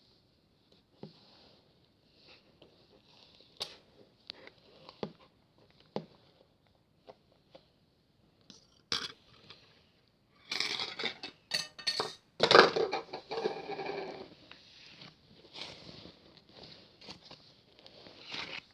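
Scattered small taps and clicks of light objects being handled close up, with a louder stretch of clattering and rattling about ten to fourteen seconds in.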